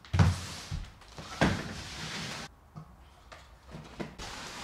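A wicker storage basket is set down with a thump, then knocked and shuffled into place with rustling. After that come a few light clicks as a desk lamp is stood on it and its arm adjusted.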